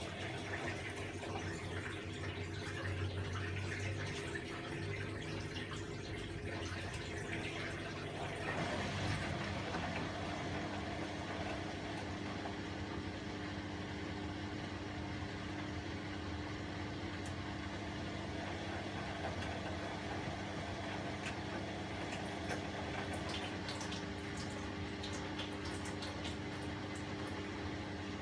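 Bosch WAE24162 washing machine filling with rushing water for about eight seconds. The inflow then stops abruptly and a steady motor hum takes over, with light ticks and splashes in the drum.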